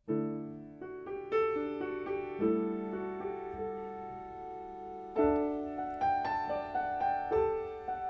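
Soundtrack piano music: slow chords and single notes come in suddenly out of near silence, with a fuller, louder chord about five seconds in.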